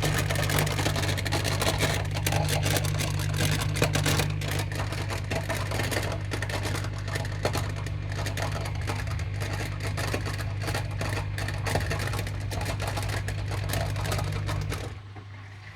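Miele dishwasher running with a fast, dense rattling clatter over a steady low motor hum, the rattling noise the machine is being recorded for. Hum and rattle cut off near the end.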